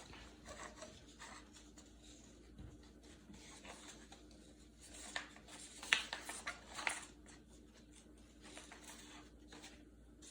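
Construction paper and string being handled as the string is tied over a paper bird cage: faint, irregular rustling and scratching, with a brief flurry of louder rustles about halfway through.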